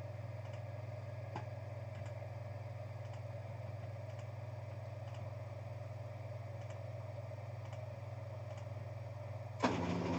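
Steady low electrical hum with faint, irregularly spaced clicks of a computer mouse and keyboard.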